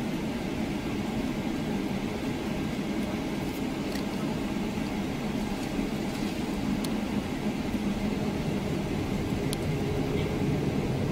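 Steady low cabin rumble inside a Boeing 777-300ER lining up on the runway, its GE90-115B engines at low thrust, growing a little louder near the end.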